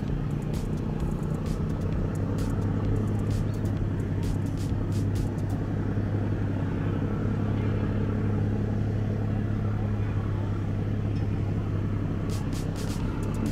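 High-speed passenger ferry's engines running steadily as it passes close by, a low drone that firms up about a second in, with faint scattered clicks in the first half and near the end.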